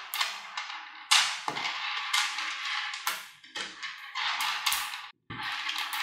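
Small magnetic balls clicking and snapping together as fingers pull and press them into a chain: a quick, uneven run of sharp clacks, each with a short rattle, broken by a brief gap a little after five seconds in.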